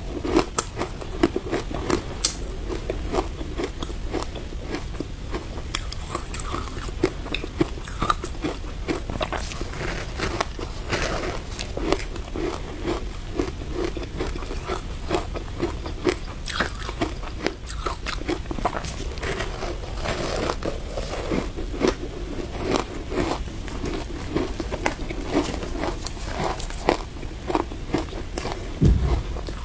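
Close-up biting and chewing of packed matcha shaved ice: a dense, irregular run of sharp crunches and crackles as the frozen ice breaks between the teeth. A single dull thump sounds near the end.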